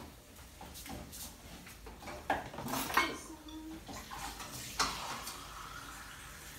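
Metal cooking pot and utensils clinking and knocking at the stove, with a few sharper clinks, the loudest about three seconds in.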